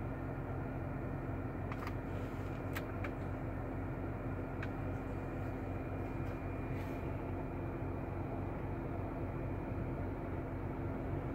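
Steady low hum inside a Toyota car's cabin, its engine running while it creeps and idles in traffic at a red light, with a few faint clicks.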